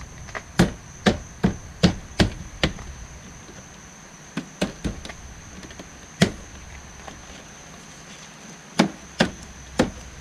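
Knocks on a Chevrolet Suburban's plastic door trim panel as its push-in retaining clips are snapped home into the door: six quick knocks in the first few seconds, a few more near the middle, and another run near the end.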